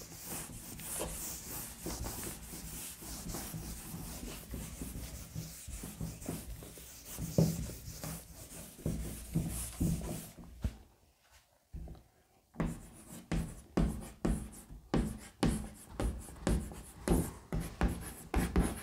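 A board eraser rubbing across a chalk blackboard, wiping it clean, for about ten seconds. After a short pause, chalk writing on the blackboard in short strokes, about two a second.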